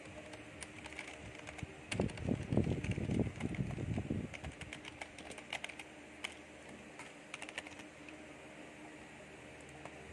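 Computer keyboard keys clicking in scattered keystrokes, with a louder stretch of muffled low noise from about two to four and a half seconds in.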